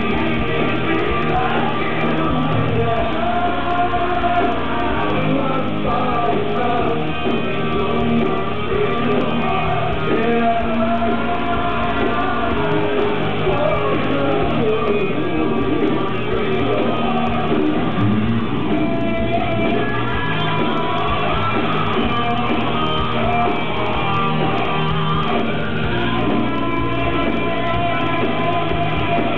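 Rock band playing live, with a male lead vocal sung into a microphone over the band, in a large hall.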